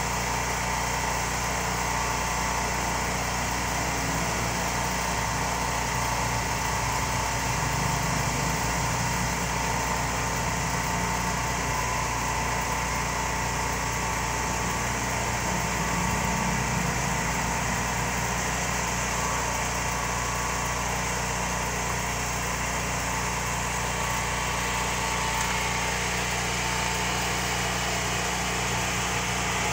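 A small engine running steadily at an even speed, with no change in pitch.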